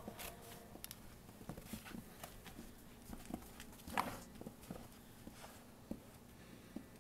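Snow shovel working deep snow on a wooden deck: faint, irregular scrapes and knocks of the blade, the loudest about four seconds in.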